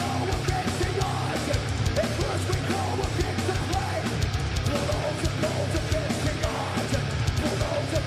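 Heavy metal band playing live: electric guitars and bass over fast, dense drumming.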